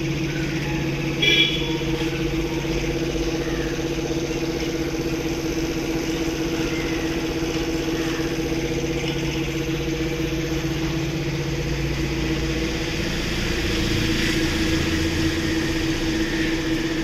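A motor running with a steady hum. About twelve seconds in its tone shifts as a lower rumble comes in. A brief high squeak sounds about a second in.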